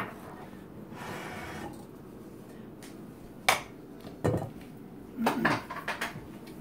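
Dishes being handled and set down on a wooden cutting board: a soft rustle about a second in, then a few separate sharp knocks and clinks, among them a stainless steel mixing bowl of beaten egg being put down.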